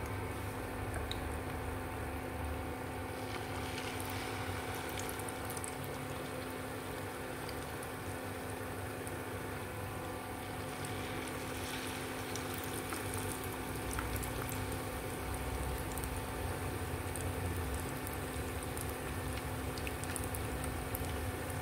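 Batter-coated bananas deep-frying in hot oil, sizzling and bubbling steadily during their second fry.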